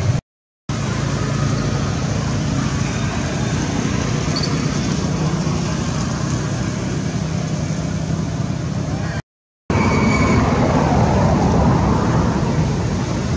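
Steady ambient rumble with a low hum, like nearby traffic or wind. It cuts out completely twice, briefly, about half a second in and again about nine seconds in.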